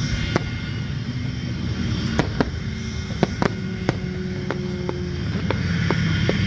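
Fireworks display: an irregular series of about a dozen sharp bangs from aerial shells bursting, over a steady low rumble.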